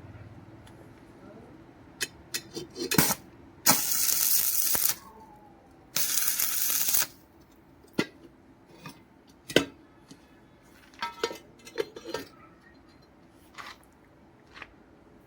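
Metal pieces clinking and knocking against each other in a string of sharp taps, with two loud hissing bursts of about a second each, about four and six seconds in.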